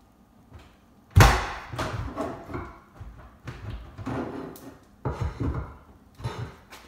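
Laminate countertop being pried up off the base cabinets with a pry bar: a sharp crack about a second in, then an irregular run of cracks, creaks and knocks as the particleboard top and its nails are worked loose.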